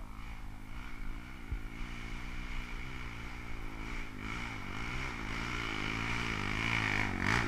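Trail motorcycle's single-cylinder four-stroke engine revving up and down repeatedly under load, growing steadily louder as it comes closer.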